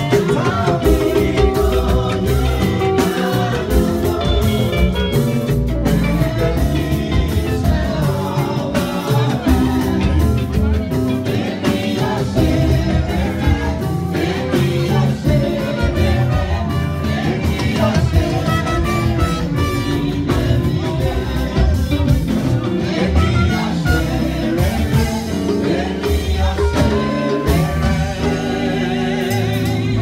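Church choir of women and a male lead singing gospel into microphones over amplified instrumental backing with a steady drum beat and heavy bass.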